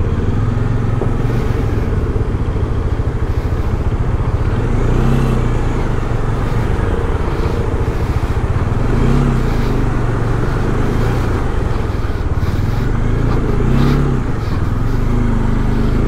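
Bajaj Dominar 400's single-cylinder engine running as the motorcycle rides through a river crossing, the revs rising and falling a few times.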